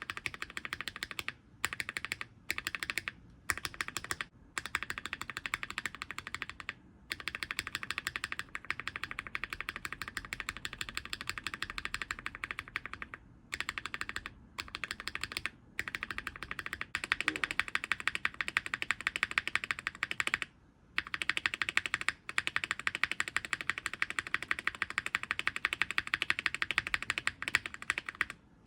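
Spacebar of a mechanical keyboard pressed rapidly over and over in runs with short pauses, sounding first on 43 Studio Popu switches and, a little past halfway, on KTT Rose switches.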